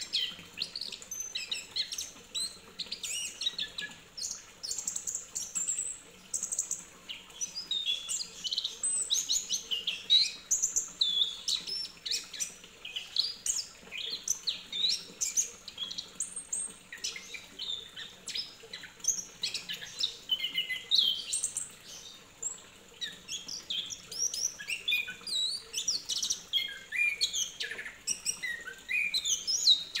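Chestnut-capped thrush (anis kembang) singing without pause: a fast, varied run of high chirping notes with quick rising and falling glides.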